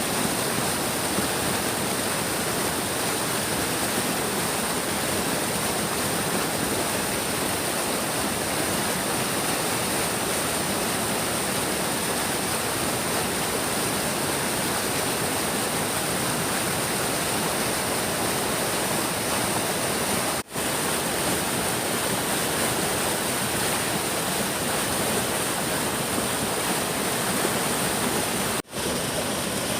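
Large stream rushing steadily over its bed: a continuous hiss and roar of moving water. The sound cuts out for a split second twice, about two-thirds of the way through and again near the end.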